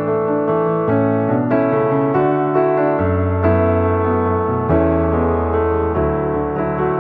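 Background piano music: a slow, gentle melody of sustained notes over low bass notes.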